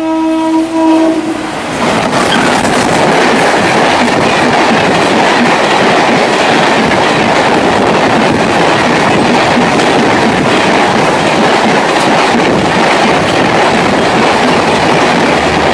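Train horn ending about a second and a half in, then a superfast express train passing at high speed: a loud, steady rush of wind and wheel clatter on the rails that holds without a break.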